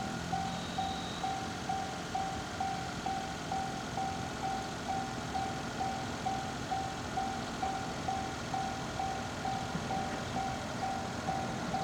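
Japanese railway level-crossing warning bell ringing steadily, the 'kan-kan' of a single electronic ding repeating about twice a second.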